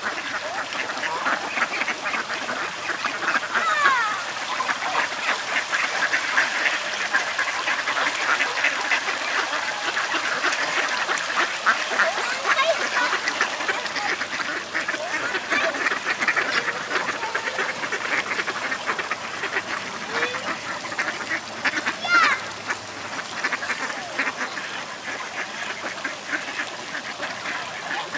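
Mallards and Canada geese calling together on the water: a dense, continuous clamour of quacks, with a louder call about four seconds in and another near the end of the second third.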